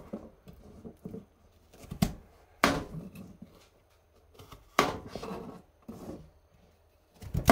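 Kitchen knife cutting through firm kabocha squash wedges on a plastic cutting board: about four sharp knocks of the blade striking the board, spread over several seconds.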